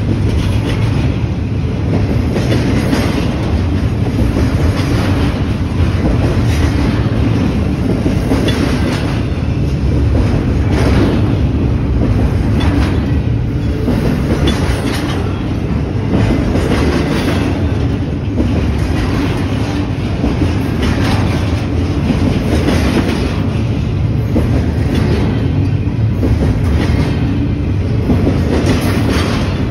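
Double-stack container train's well cars rolling past, their steel wheels making a loud, steady rumble on the rails, with repeated clacks over the rail joints.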